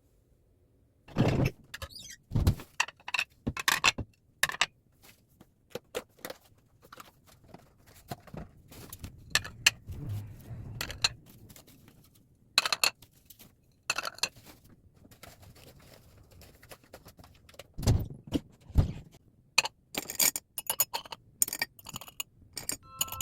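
Irregular clicks, knocks and light clinks of objects being handled, with a few heavier thumps, starting about a second in.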